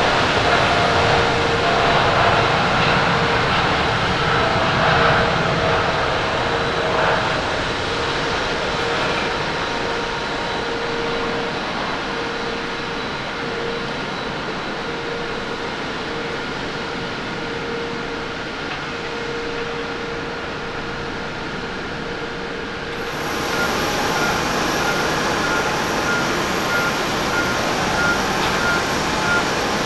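Boeing 787 Dreamliner's turbofan engines at takeoff power through the takeoff roll and climb-out: a steady jet noise with a held tone, slowly fading as the aircraft climbs away. About 23 s in it cuts abruptly to the steadier, higher-pitched whine of an Airbus A350's engines at taxi power.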